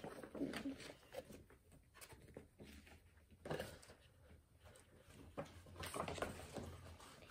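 Faint paper rustling and handling noises from a printed fact sheet being folded back up, with a few louder crinkles.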